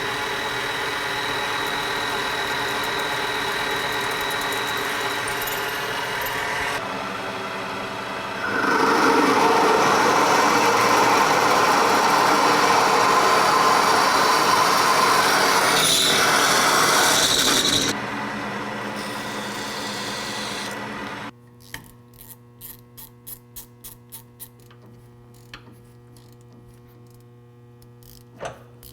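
A metal-cutting machine tool running with a steady motor hum. About eight seconds in a loud, noisy cut begins and lasts about ten seconds. Around twenty seconds in the machine shuts off, leaving a low hum and scattered light clicks.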